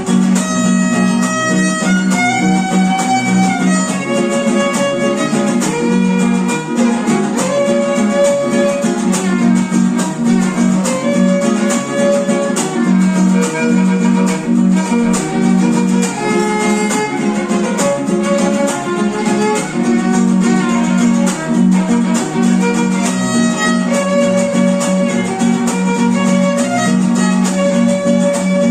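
Instrumental music: a violin playing a melody over guitar accompaniment, at a steady level without pauses.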